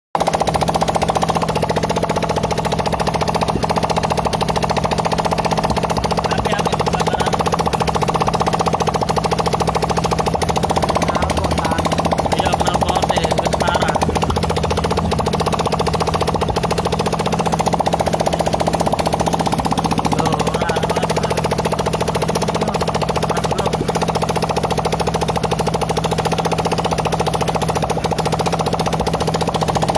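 Motorcycle engine running steadily with a fast, even pulse and no change in speed.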